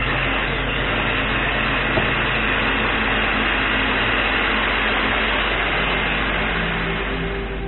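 Electric mixer running steadily at speed, beating the egg mixture as the milk goes in; the motor dies down near the end.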